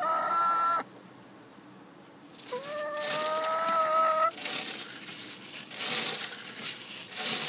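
Chicken feed rattling and pattering down through a wire mesh floor and a wooden funnel into a bucket, a crinkling rustle in several surges from about three seconds in. Over it a hen gives two drawn-out calls, one at the start and a longer, slightly rising one in the middle.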